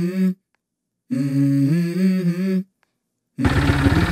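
A hummed tune of a few held, stepped notes, cut off abruptly and then played again identically after a gap of silence, like an edited-in sound clip. About three seconds in, a loud rough noise cuts in suddenly.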